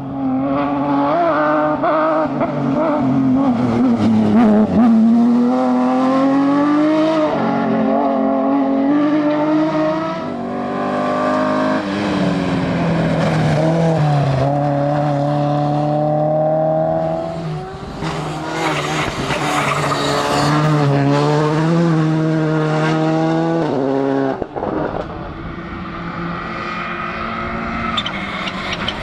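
Rally car engines at full throttle, the engine note climbing and dropping sharply with each gear change, heard over several passes.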